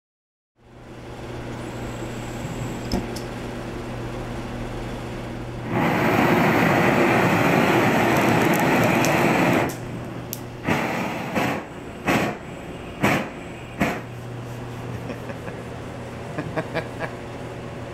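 Gas burner flame playing on a burning wooden sculpture. A steady hiss with a low hum, then a loud roar for about four seconds, followed by about six sharp pops a second or so apart.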